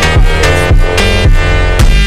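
Electronic dance music with a heavy, steady beat and a deep bass line.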